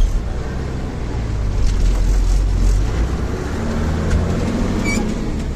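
Bus engine running with a steady low road rumble while the bus is under way, and a sharp thump right at the start.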